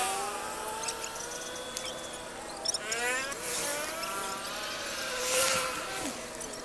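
High-revving 4000kv brushless motor of an RC boat on a 3S battery, its whine dropping in pitch at the start and climbing again about three seconds in as the throttle is worked.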